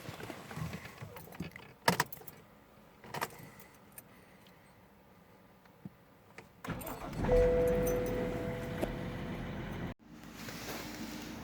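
Keys jangling and clicking, then about seven seconds in the BMW 525d's diesel engine is cranked with a starter whine and fires up, the engine having come back to life after a replacement ECU was fitted. After a sudden break near the end, the engine runs steadily.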